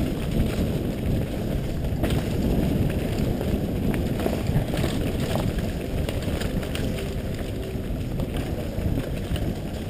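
Wind buffeting a helmet-mounted camera's microphone as a mountain bike rides downhill on a dirt trail, a steady low rumble, with scattered clicks and rattles from the bike jolting over roots and rocks.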